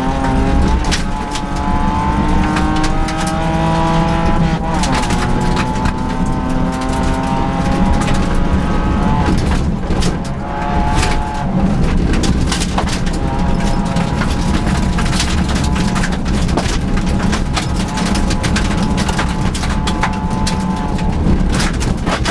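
Rally car engine heard from inside the cabin, pulling hard on a gravel stage. The revs climb through the gears, with an upshift about four and a half seconds in and a brief lift around ten seconds in. Frequent sharp clatters of gravel strike the car throughout.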